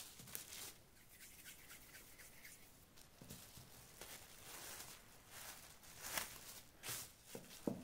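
Plastic cling film being handled: soft rustling and crinkling as the sheet is lifted and spread out by hand, with a few sharper crackles in the last couple of seconds.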